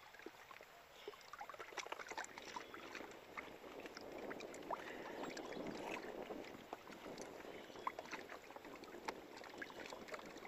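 Faint water lapping at a small fishing boat's hull, swelling for a few seconds midway, with scattered light clicks and taps from handling a hook out of a longnose gar on the deck.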